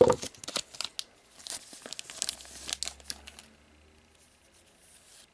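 Foil booster pack wrapper crinkling and tearing in the hands, a dense run of crackles over the first three seconds or so that then dies away.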